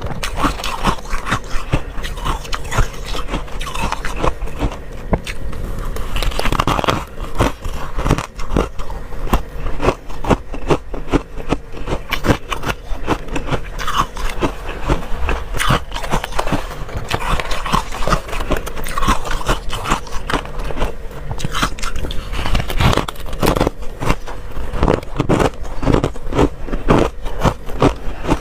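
Close-miked chewing and crunching of freezer frost: dense, irregular crackling bites with scraping sounds throughout.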